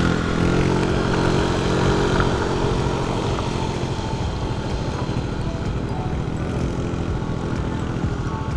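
Small motorcycle engine running while riding; the pitch eases down over the first few seconds, then holds steady.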